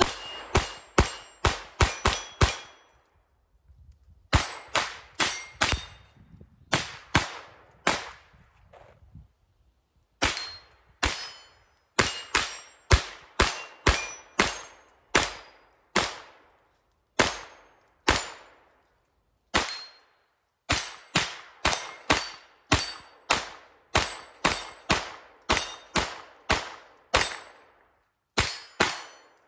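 Kel-Tec CP33 .22 LR pistol firing Remington Thunderbolt 40-grain high-velocity rounds: dozens of sharp shots in quick strings of several, with short pauses between strings. Many shots are followed by a brief ringing tone.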